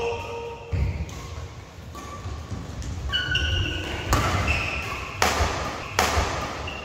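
Badminton doubles rally: sharp cracks of rackets striking the shuttlecock, a few seconds apart at first and then about a second apart, the last one hit hard as a jump smash. Between the hits come short squeaks of court shoes on the synthetic court mat.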